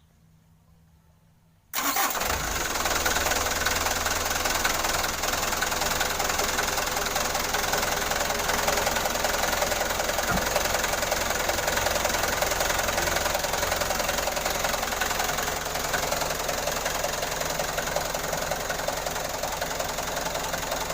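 An engine starts up about two seconds in and then keeps running steadily at idle.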